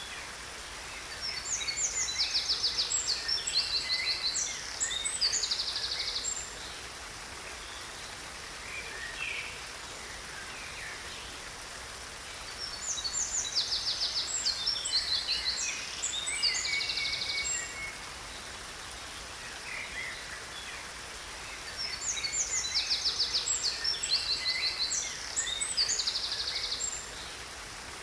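Songbird singing three long phrases about ten seconds apart, each a run of high chirps and fast trills, over the steady rush of a waterfall.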